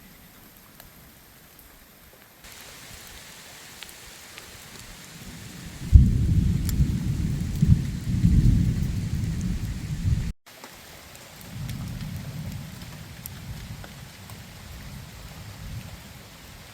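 Steady rain shower falling, with a thunder clap that breaks suddenly about six seconds in and rumbles for about four seconds, then a second, fainter rumble of thunder.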